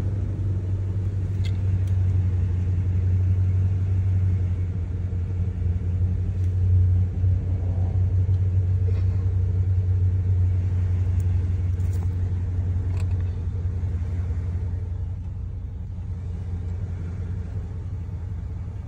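2010 Dodge Ram 1500 Laramie engine idling steadily, heard from inside the cab as a low, even rumble that eases slightly in level near the end.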